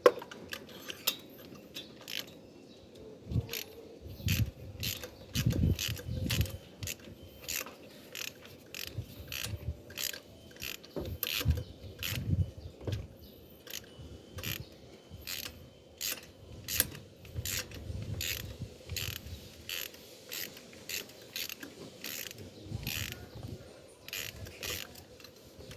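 Ratchet wrench clicking in short, irregular runs as a 14 mm deep spark-plug socket backs a spark plug out of the engine.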